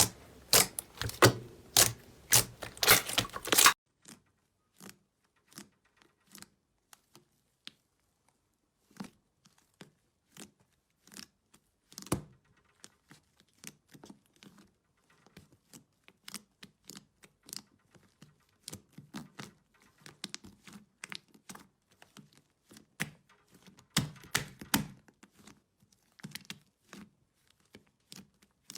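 Slime being played with, crackling and popping. Dense, loud crackling cuts off abruptly a few seconds in, followed by sparse, quieter clicks and pops with a brief busier patch near the end.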